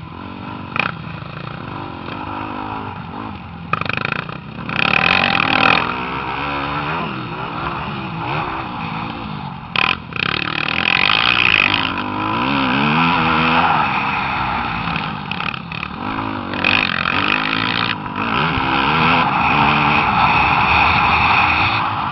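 Motocross dirt bike engines revving, their pitch rising and falling as the riders work the throttle around the track, with louder surges several times.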